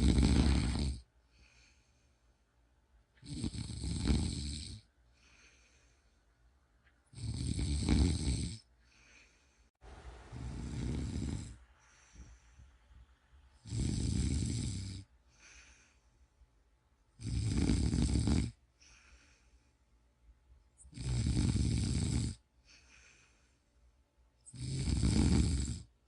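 A person snoring in a slow, regular rhythm: a loud snore about every three and a half seconds, each lasting about a second and a half, with a fainter breath in between.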